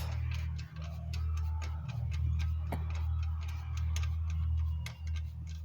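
Irregular sharp metal clicks and ticks from hand tools tightening a fastener on a motorized bicycle build, over a steady low hum.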